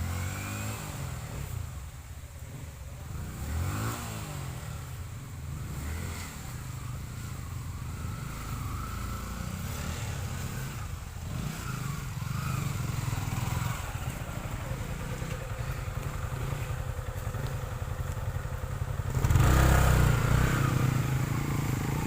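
Motorcycle engine running and revving, its pitch rising and falling. It swells loudest about nineteen seconds in.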